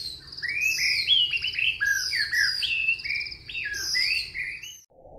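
A bird singing: a quick, continuous run of varied chirps and warbled, trilled phrases that stops shortly before the end.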